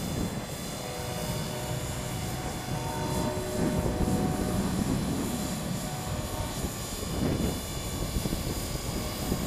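450-size electric RC helicopter in flight: a steady whine of the motor and drivetrain over the whir of the rotor blades, growing louder for a while around four seconds in. Wind buffets the microphone with a low rumble.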